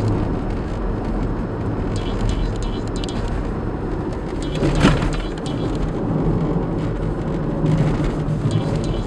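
Cabin noise of a 2005 Toyota Wish driving on asphalt at about 40 km/h: steady road and engine noise, with short clusters of squeaks from under the dashboard panel whose source the owner cannot find. One louder thump about five seconds in.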